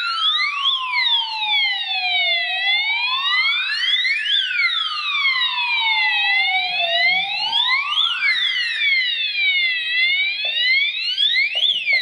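Addressable fire alarm sounder strobe sounding a wailing siren tone. Each sweep rises quickly and falls slowly, repeating about every four seconds, with a faster, higher sweeping tone layered over it. It is the alarm set off by a smoke detector test.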